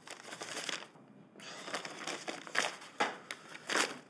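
Paper crinkling and rustling as it is handled: an irregular run of short crackly strokes, busiest about half a second in and again in the second half.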